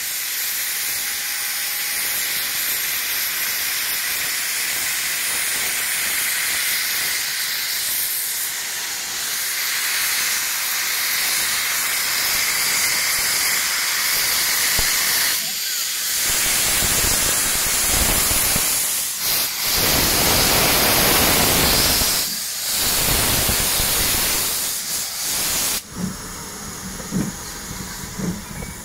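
Steam locomotive No. 5553, a GWR small prairie tank engine, venting steam in a loud continuous hiss. About halfway through a deep rumble joins the hiss, breaking off briefly a few times, and the sound thins out near the end.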